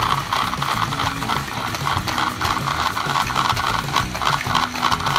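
Motorized Thomas & Friends Trackmaster toy engines running with a steady, rattly whir of their small electric motors and gears, stuck in slime and unable to move.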